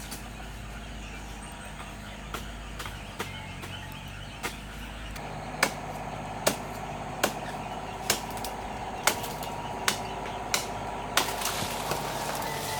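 Repeated sharp chopping or knocking strikes, about one every 0.8 seconds, starting roughly halfway through, with a few scattered clicks before.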